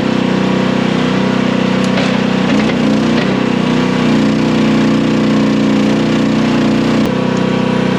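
Small gasoline engine of a mini skid steer running steadily under work, with a few light knocks about two to three seconds in and a brief sharp click near the end.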